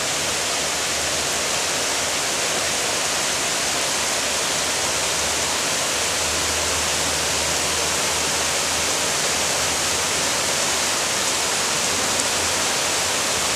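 A heavy rainstorm: a downpour hissing steadily and evenly, coming down hard.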